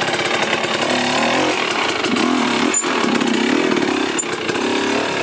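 Two-stroke Husqvarna enduro dirt bike engine running and being revved in short rising-and-falling blips, several times, while the rider holds the brakes to compress the suspension.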